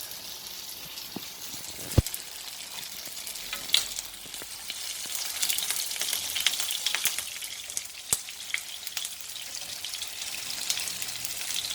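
Tofu pieces frying in hot cooking oil, a steady high sizzle with fine crackling spatter that grows busier midway. Two sharp knocks, one about two seconds in and one about eight seconds in.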